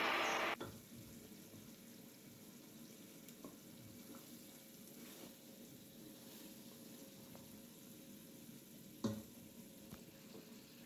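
Background music ending in the first half second, then a faint, steady hiss with a single knock about nine seconds in and a couple of small ticks after it.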